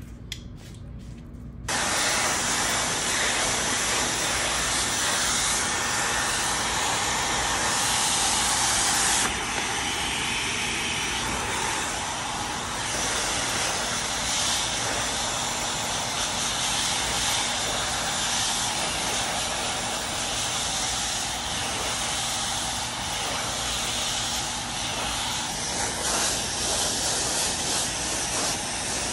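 Handheld hair dryer blowing hair over a round brush, a loud, steady hiss that starts abruptly about two seconds in and turns slightly quieter about nine seconds in.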